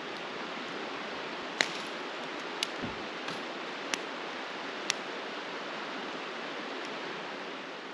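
A steady rushing hiss, with four sharp ticks scattered through the first five seconds and a low thump about three seconds in.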